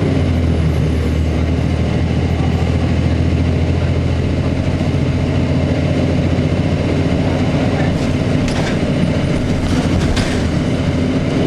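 Cummins ISC diesel engine of a Blue Bird CS transit bus running with a steady low drone, with a few short rattles late on.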